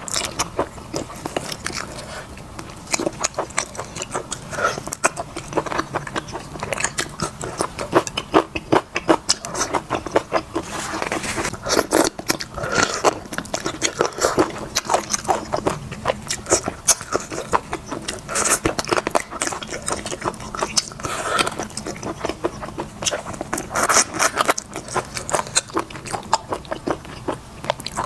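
Close-miked eating sounds: chewing, with wet, sticky mouth clicks and smacks from saucy chicken pieces and wide noodles, coming as a dense run of small clicks.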